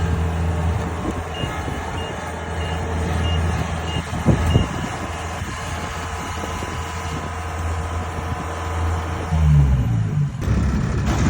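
Combine harvester's diesel engine running steadily as the machine works the paddy, with a row of short high beeps from its warning beeper in the first few seconds. The engine note shifts near the end.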